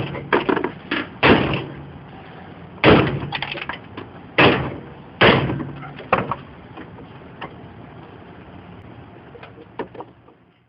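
Hammer blows on car body sheet metal. There are about nine heavy strikes at an uneven pace, each ringing briefly, then a few lighter knocks near the end.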